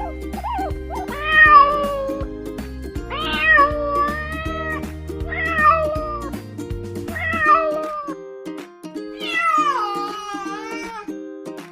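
A domestic cat meowing five times in long, drawn-out calls, each sliding down in pitch, the last one the longest, over background music.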